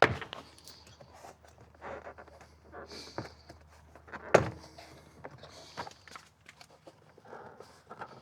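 Plastic car door trim panel being worked loose and lifted off the door: a sharp knock at the start and a louder one about four and a half seconds in, with scattered clicks and rustling of plastic between.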